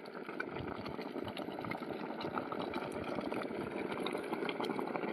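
Water heating in a pot: a steady rushing with many small scattered ticks and pops, slowly getting louder as it warms toward a simmer.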